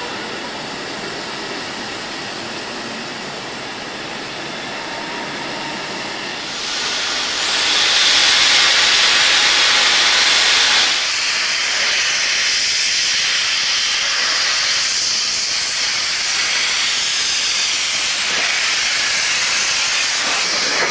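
Steam locomotive venting steam: a steady hiss that swells much louder about seven seconds in, stays loudest for about four seconds, then eases to a slightly quieter steady hiss.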